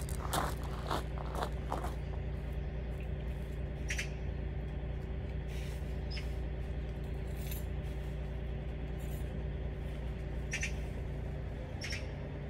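A motor vehicle's engine running with a steady low hum, with a few short clicks and knocks: a quick cluster at the start, then single ones scattered through.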